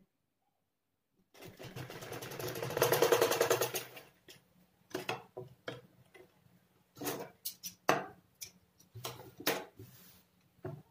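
Black domestic sewing machine running a short burst of rapid stitches, starting about a second in and stopping at about four seconds. It is sewing a gathered ruffle layer onto a frock. After it stops come scattered clicks and rustles of the fabric being handled and shifted.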